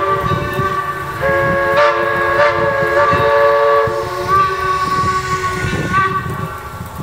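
Steam locomotive whistle blowing a chord in a string of long blasts, with short breaks about a second in, around two and a half seconds and about four seconds in, and stopping about six seconds in. The engine's exhaust rumbles low underneath.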